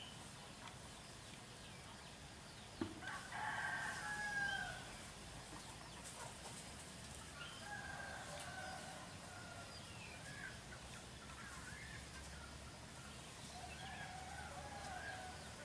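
Roosters crowing: one loud crow about three seconds in, just after a sharp click, then fainter crows later.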